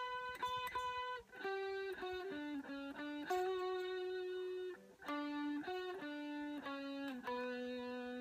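Electric guitar playing a slow single-note enka melody, one sustained note at a time with short breaks between, ending on a long held low note.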